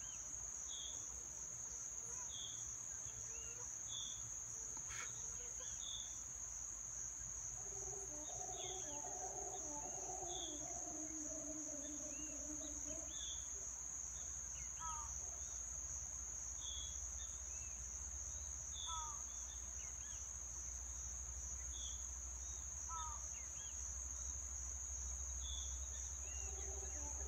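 Howler monkeys howling faintly, a low, wavering roar from about eight to thirteen seconds in and again near the end. Under it runs a steady high insect drone, the loudest sound throughout, with short bird chirps every second or two.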